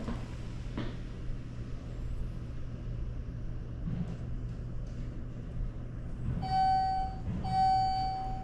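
Elevator arrival chime sounding twice near the end, two even electronic beeps of the same pitch, over a steady low building hum.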